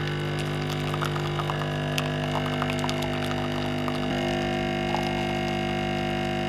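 Background music of held synth-like chords that move to a new chord about four seconds in, with a few faint clicks on top.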